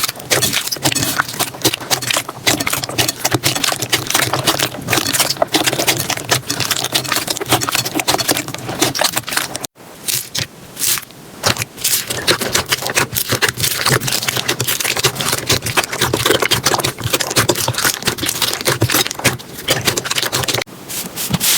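Slime being squeezed and pressed, a dense run of crackles, pops and wet clicks, with a brief break about ten seconds in.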